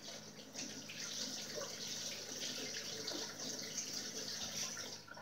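Kitchen faucet running steadily into the sink, a continuous hiss of water that is shut off about five seconds in.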